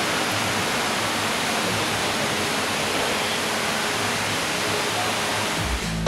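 Steady rush of flowing water, an even hiss without any rhythm. Deep thuds of music come in just before the end.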